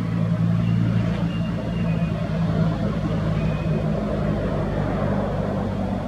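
Steady low engine hum, like a motor vehicle running nearby, holding an even pitch throughout. Faint short high peeps come and go above it.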